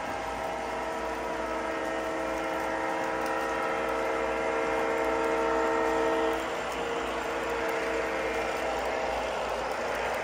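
Horn of an O-gauge model diesel locomotive's onboard sound system, a steady multi-note chord held for several seconds and cutting off about six seconds in, over the rolling rumble of model trains running on the track.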